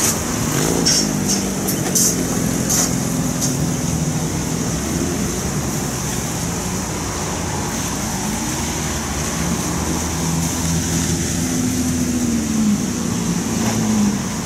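Cars driving past at low speed: the engine notes rise and then fall as each car pulls through and away, with a lowered sedan passing at the start. A series of sharp clicks in the first few seconds and a steady high hiss throughout.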